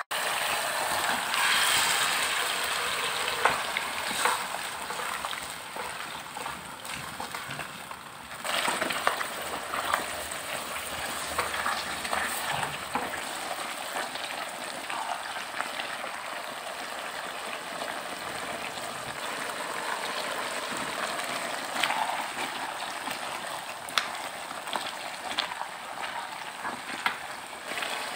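Sweet-and-sour sauce sizzling and bubbling in a wok while vegetables and squid are stir-fried, with the spatula scraping and clicking against the pan. The level dips briefly about 8 seconds in.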